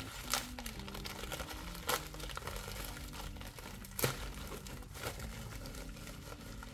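Packaging crinkling and tearing as a mailed package is opened by hand, with a few sharper crackles, over faint background music.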